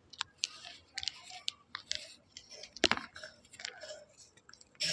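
Chalk being bitten and chewed close to the microphone: irregular sharp, gritty crunches and crackles, the loudest about three seconds in.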